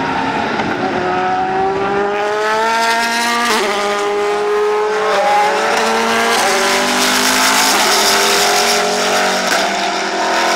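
Saleen S7-R GT1 race car's 7-litre Ford V8 at full throttle, accelerating hard through the gears: the engine note climbs, drops sharply at each upshift, and climbs again, several times over.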